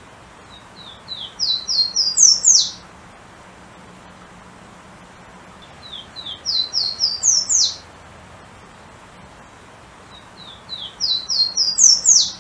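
Golden-crowned warbler (pula-pula) singing three times, each song a quick run of short thin notes stepping upward in pitch and ending in a sharp high upslurred note. The songs come a few seconds apart, near the start, in the middle and near the end.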